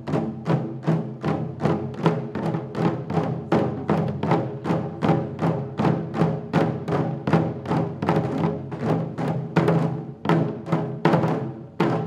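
Taiko drums struck with wooden sticks in a steady, driving rhythm of about four strokes a second, with some louder accented hits. Each stroke leaves a short, low, ringing boom.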